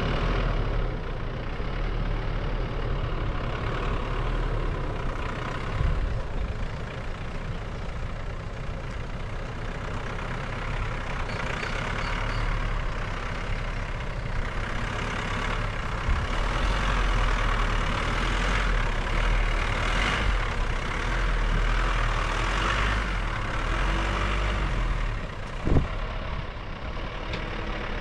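Sprinter motorhome running, a steady deep engine rumble under a broad rushing noise that rises and falls, with a single sharp knock near the end.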